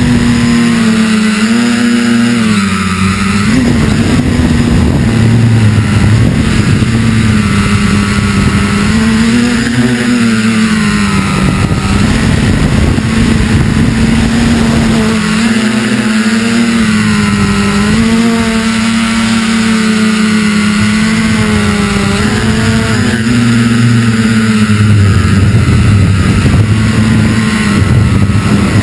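FPV multirotor drone's electric motors and propellers, picked up by its onboard camera: a loud, steady buzz whose pitch rises and falls as the throttle changes.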